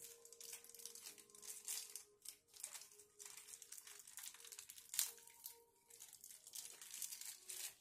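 Faint rustling and light ticks of fingers handling and turning a small plastic figure, with one sharper tick about five seconds in.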